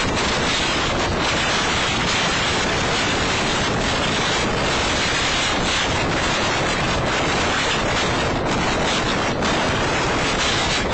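Thunderstorm wind blowing across the microphone: a loud, steady rushing noise.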